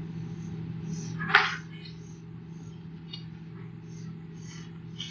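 Steady low hum and hiss of an old cassette lecture recording during a pause, broken by one short, sharp burst of noise about a second and a half in.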